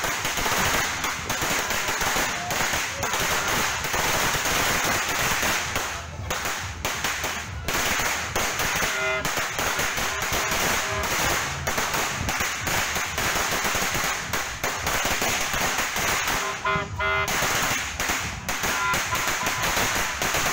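A string of firecrackers going off in the street: continuous rapid cracking with hardly a gap for the whole stretch.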